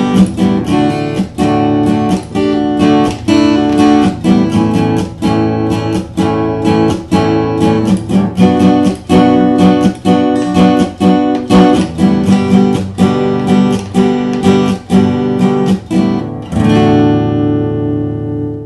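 Acoustic guitar strummed in a steady rhythm as an instrumental ending. Near the end a last chord is left to ring and fade out.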